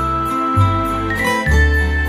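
Background music: held notes that step in pitch over a bass line, with a steady high percussion beat.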